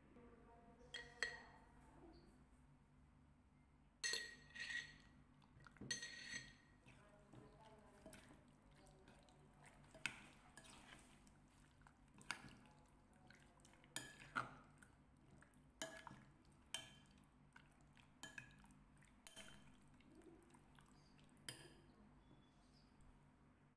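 Metal spoon clinking against a glass mixing bowl while stirring raw chicken pieces in their marinade. The clinks are sharp, with a short ring, and come irregularly every second or two.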